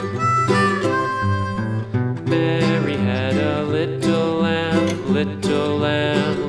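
Country-style instrumental music: a harmonica melody, then acoustic guitar strumming and picking about two seconds in.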